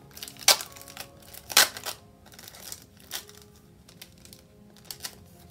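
A packet of index sticker sheets being handled, its plastic packaging rustling, with two sharp crinkles about half a second and a second and a half in and lighter ticks later. Soft background music plays throughout.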